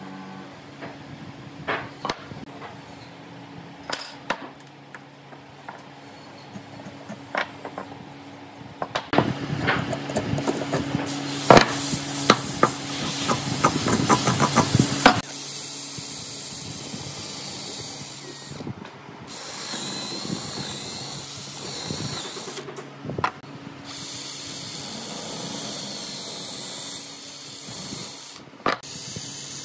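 Hand work on pine pieces: scattered light taps and clicks of marking tools and wood being handled, then a louder, busy stretch of rapid knocks and noise for several seconds, followed by steadier noise, with a cordless drill boring into the pine near the end.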